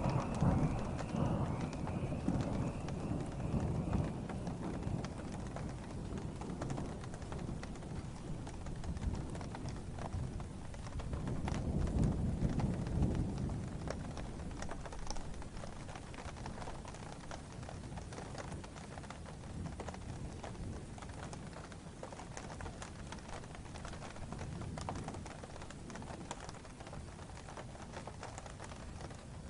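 Steady rain falling with scattered sharp drips, and low rumbles of distant thunder swelling near the start and again, louder, about twelve seconds in.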